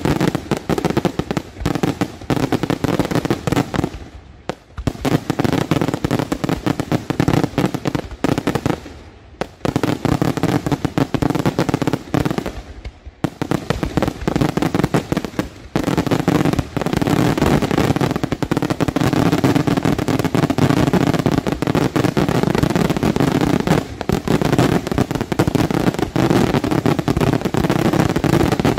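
Daytime aerial fireworks bursting in dense rapid volleys of bangs and pops. There are brief lulls about four, nine and thirteen seconds in, then an almost unbroken barrage for the rest of the stretch.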